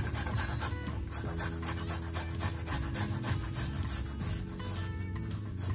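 Garlic clove being rubbed back and forth on a fine rasp grater, giving quick, repeated scraping strokes.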